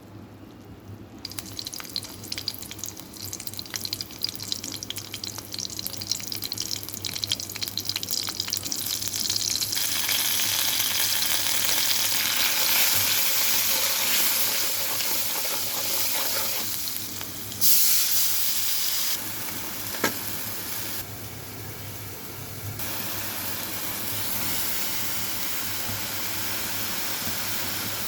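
Food frying in hot oil, sizzling with crackling pops. The sizzle starts suddenly about a second in and grows much louder about ten seconds in, with a couple of sharp clicks later on.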